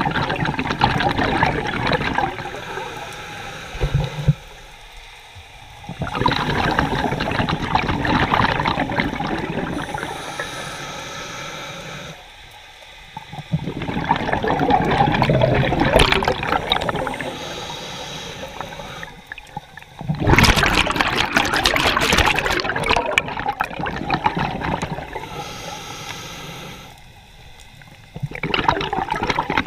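Scuba diver breathing through a regulator underwater: exhaled bubbles rush out for several seconds at a time. There are four long breaths out, with short quiet pauses between them.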